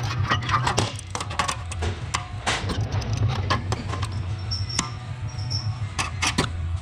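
Background music with a steady low beat, over irregular sharp clicks and knocks.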